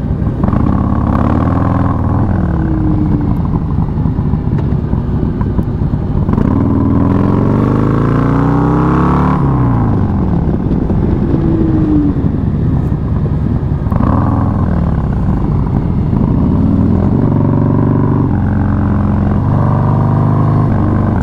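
Harley-Davidson Low Rider S motorcycle with a 131 cubic-inch Milwaukee-Eight V-twin and S&S Super Street race-only 2-into-1 exhaust, running hard on a winding road. Its pitch climbs and drops again and again as the rider accelerates and rolls off the throttle, with the longest climb about halfway through ending in a sharp drop.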